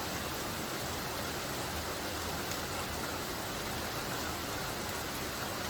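Steady light rain falling, an even hiss without thunder.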